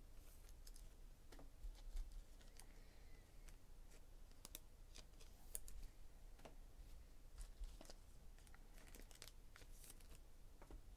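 Faint, irregular clicks and light rustles of trading cards and their packaging being handled by hand.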